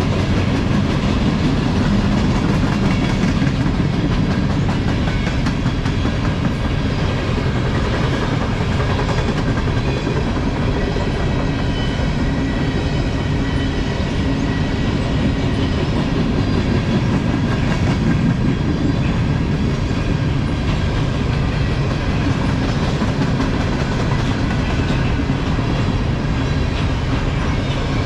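Covered hopper cars of a CN freight train rolling past steadily: a continuous low rumble with the wheels clacking over the rail joints.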